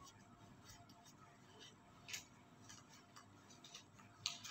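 Faint soft rustling ticks of a paper tissue wiping across the lips and skin: a few short strokes, the clearest about two seconds in and near the end, over near silence.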